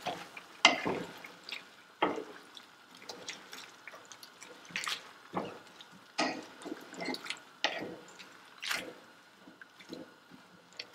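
A wooden spoon stirring shrimp, chicken and onions in a nonstick pot: irregular knocks and scrapes against the pot and the wet sound of the food being turned over.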